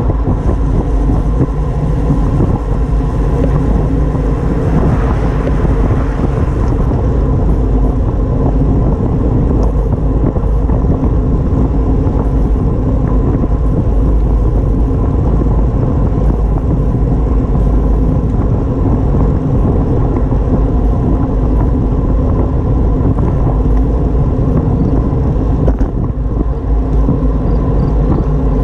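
Steady wind buffeting and road rumble on a camera carried on a moving bicycle, mostly a deep, even low rumble that does not let up.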